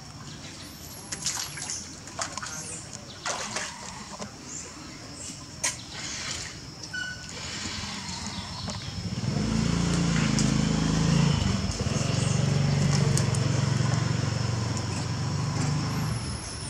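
Water splashing and dripping in a concrete tank as young macaques swim and climb in it, with scattered small splashes. From about nine seconds in, a louder low droning sound comes in over it.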